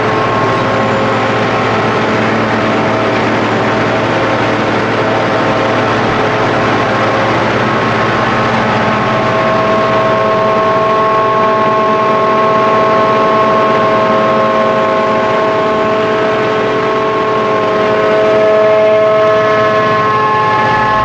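John Deere 7300 self-propelled forage harvester with a Kemper maize header running steadily at work: a loud engine with a steady high whine over it, which grows stronger about nine seconds in.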